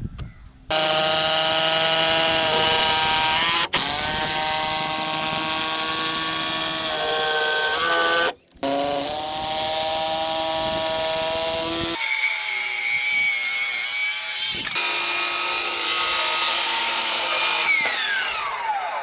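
Handheld electric power tool running under load in long steady stretches, its motor whine shifting pitch as it works. It stops briefly twice. Near the end it is released and the whine falls away as the motor spins down.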